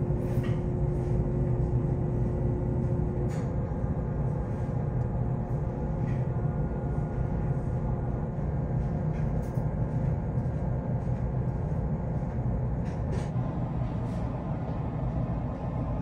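Steady low drone of a large car ferry's engines and machinery, heard on board while under way. A faint higher hum in it stops about three seconds in.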